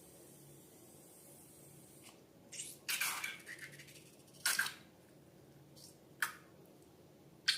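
Slime being squished and handled, heard as a handful of short wet squelches, the longest about three seconds in.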